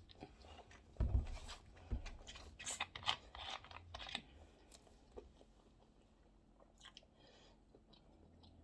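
A person chewing food close to the microphone, with crackly crunching strokes over the first few seconds, then only faint scattered mouth clicks.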